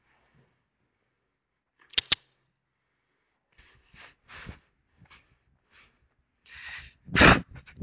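A loose horse moving over arena footing: a sharp double click about two seconds in, then soft thuds and scuffs, and near the end a loud noisy blow, the horse snorting.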